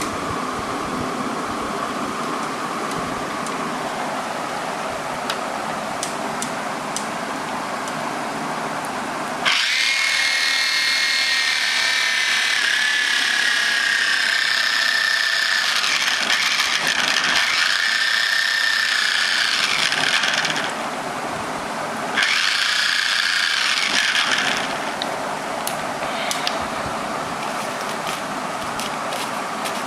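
Small 6-volt electric motor whining as it runs, switched by a home-made 27 MHz radio receiver during a signal test. It starts about ten seconds in, runs for about eleven seconds with its pitch sagging slightly, cuts out briefly, then runs again for a couple of seconds, over a steady background hum.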